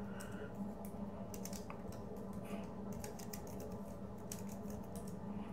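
Computer keyboard keys clicking in quick, irregular bursts of typing, over a steady low hum.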